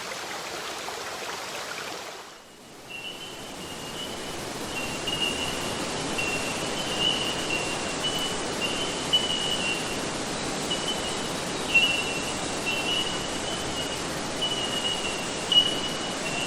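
Rushing creek water near a waterfall, a steady even rush that dips briefly about two seconds in. From about three seconds on, a thin high-pitched tone sounds over it in broken stretches.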